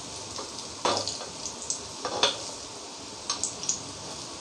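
Bottle-gourd kofte batter frying in a little oil in an appe pan, with a steady sizzle. A steel spoon scrapes and clicks against the pan several times as the kofte are turned over, most sharply about one second and two seconds in.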